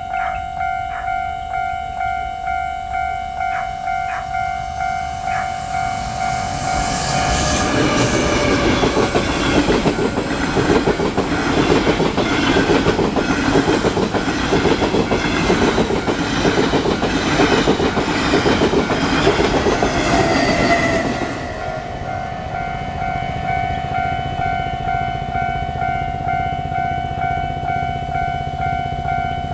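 Level-crossing warning bell of a Taiwan Railways crossing ringing in an even beat, about once a second. From about 7 s in a train runs through the crossing for roughly 14 s, wheels clattering rhythmically over the rails, then the bell rings on alone.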